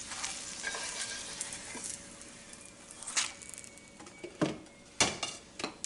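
Hot oil sizzling in a frying pan as the pan-fried dumplings are lifted out, the sizzle fading over the first couple of seconds. Then a few sharp knocks and clinks of a utensil against the pan.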